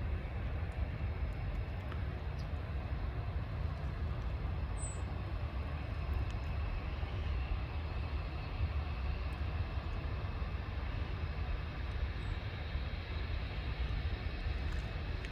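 Steady low rumble of a Boeing 787 airliner, even in level throughout with no rise or fall.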